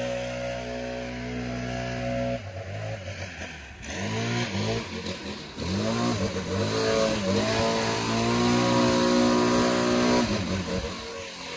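Stihl BR 800 two-stroke backpack leaf blower running at full throttle. The throttle is let off and blipped back up several times in the middle, and the engine dips and rises in pitch each time. It then holds full speed and drops briefly again near the end.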